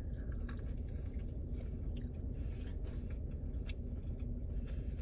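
A person chewing a mouthful of fried chicken nugget, faint wet mouth clicks over a low steady hum.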